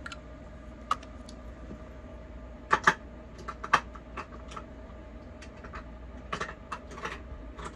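Irregular light clicks and clacks of small plastic makeup containers being picked through and handled, with a cluster of louder clacks about three seconds in.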